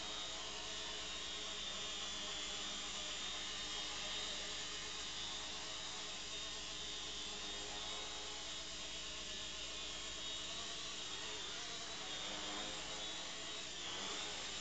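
Walkera 4#3 micro RC helicopter's electric motors and rotor buzzing steadily in hover, its main motor driven by a freshly replaced FET on the 4-in-1 controller. The pitch dips briefly near the end.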